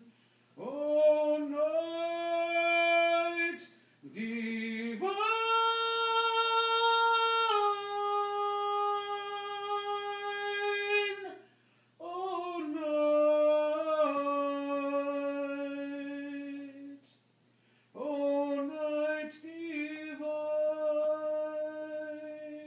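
A man singing a Christmas carol unaccompanied, in five long phrases of sustained, held notes with short breaks for breath between them.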